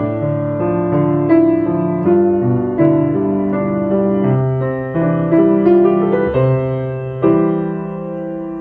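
Piano playing a song accompaniment from bar 13 to the end, chords moving through D minor, G7, C, C major 7 over B and D minor over A. It finishes on a chord struck about seven seconds in and left ringing.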